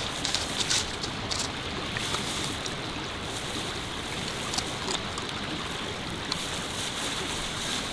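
Steady hiss of water, even and unbroken, with a few light clicks in the first second and a half.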